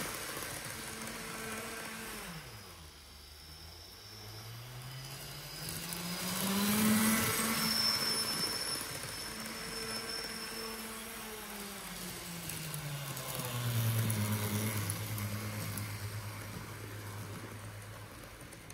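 N-gauge TGV Sud-Est model's ESU LokSound 5 sound decoder playing a low electric traction-motor hum through its small speaker. The pitch slides down, climbs back up, holds, then slides down again and settles. It grows louder twice, about seven and fourteen seconds in, as the model runs past close by.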